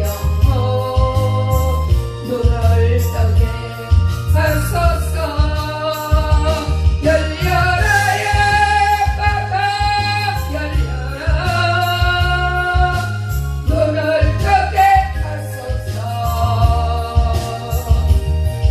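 A gospel special song sung by one voice over an accompaniment with a heavy bass line, the singer holding long notes.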